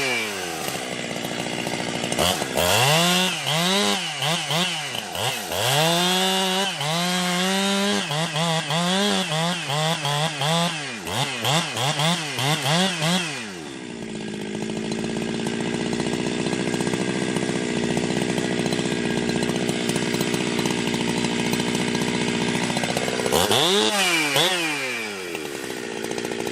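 Ported Jonsered 2071 two-stroke chainsaw, with an exhaust mod and the decompression valve plugged, revved up and down in repeated quick bursts. It then settles to a steady idle for about ten seconds before one more rev near the end.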